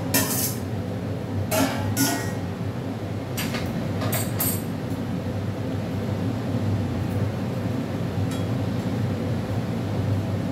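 Metal spatula clinking against a steel bowl and pan as fried fish pieces are scraped into curry gravy: about six sharp clinks in the first four and a half seconds, then only a faint tick or two. A steady low hum runs underneath.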